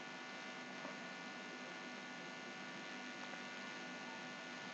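Faint, steady electrical mains hum with many even overtones over a light background hiss.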